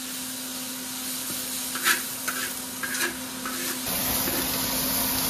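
Thinly sliced beef sizzling in a large wok over high heat while a long-handled spatula stirs it, with a few short scrapes of the spatula against the wok. The sizzle grows louder about four seconds in.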